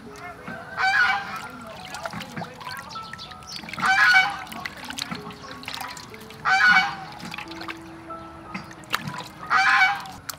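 An animal call, pitched and loud, repeated four times about every three seconds, each under a second long. Under it, faint splashing and rubbing of hands washing fish in a metal basin of water, and soft background music.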